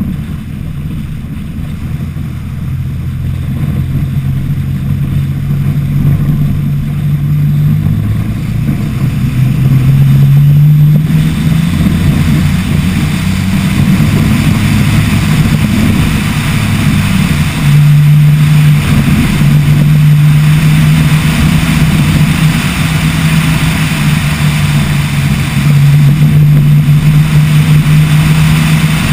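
Toyota Tacoma off-road truck's engine running hard at speed on a dirt road. Its note holds steady and steps up in pitch several times, with a rushing noise of wind and gravel that grows louder about a third of the way in.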